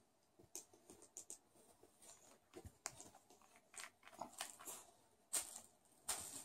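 Faint clicks and crackling as the cap of a plastic e-liquid dropper bottle is handled and twisted off, then two short sniffs near the end as the bottle is smelled.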